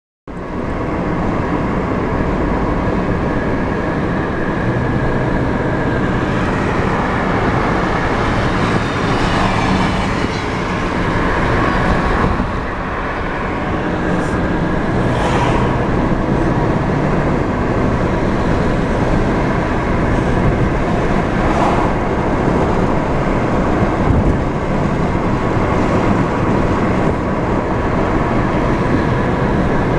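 Steady road and engine noise inside a moving car's cabin: tyre rumble and engine hum, swelling briefly about nine and fifteen seconds in.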